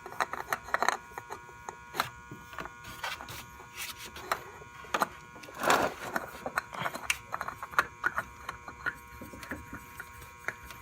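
Irregular small clicks, knocks and rubbing of hands handling the new oil filter and parts while fitting it to a motorcycle engine, with one louder scrape a little under six seconds in. A faint steady electrical hum runs underneath.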